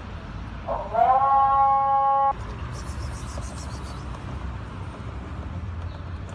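Vehicle horn sounding once, held steady for about a second and a half with a slight upward slide at its start, and cut off abruptly, over steady street traffic noise.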